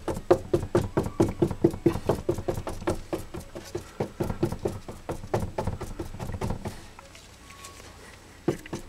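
Rapid patting, about four taps a second, as carbon fiber cloth is dabbed and pressed down into wet epoxy inside a motorcycle seat cowl; the patting stops about seven seconds in.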